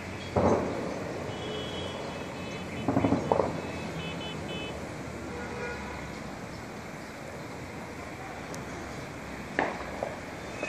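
Steady wind and outdoor city noise, broken by short sharp bangs: one about half a second in, a quick run of about three around three seconds in, and two close together near the end.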